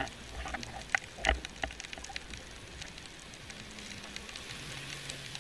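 Underwater crackle over a coral reef: a steady bed of scattered sharp clicks, typical of reef noise from snapping shrimp, with a louder knock just over a second in.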